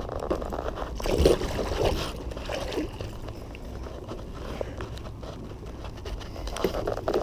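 Scraping and rustling close to the microphone, mixed with sloshing water, as a hooked wels catfish is handled at the surface beside a kayak. The loudest burst comes about a second in.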